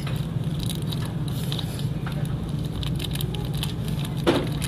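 Plastic sauce packet crinkling with small crackles as it is squeezed empty into an instant noodle cup, over a steady low background hum. A brief louder sound comes near the end.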